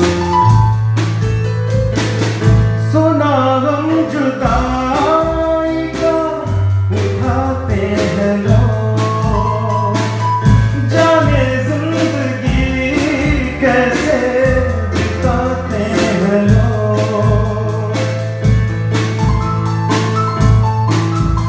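Small live band: a man singing into a microphone over electronic keyboard chords and an acoustic drum kit keeping a steady beat with cymbals. The voice comes in a few seconds in and drops out a few seconds before the end, leaving keyboard and drums.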